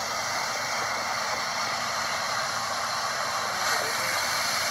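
Ocean surf breaking and washing up the beach: a steady hiss with no separate strokes.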